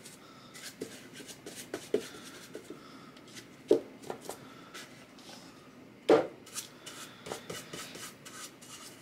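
Chip paintbrush scratching and dabbing paint onto a wooden bunny cutout, a run of short, scratchy brush strokes. Two louder knocks come about four and six seconds in.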